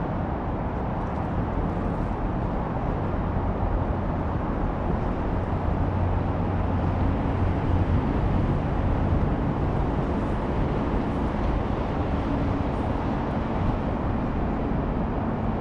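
Steady low rumble of outdoor background noise with a faint low hum running under it.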